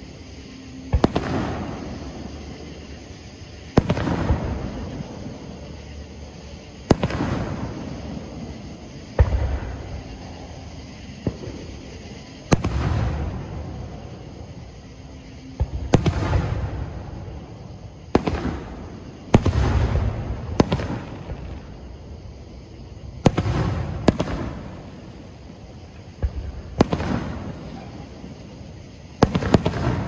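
Aerial fireworks shells bursting, about fourteen sharp booms one to three seconds apart, each trailing off in a long rumbling echo.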